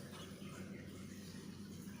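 Quiet room tone: a faint steady low hum under light hiss, with no distinct sound standing out.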